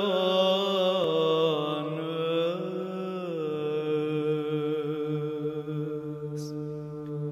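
Byzantine chant sung in Arabic by an Orthodox church choir. The voices move through a melodic phrase over a steady low held note, then settle on one long sustained note from about three and a half seconds in.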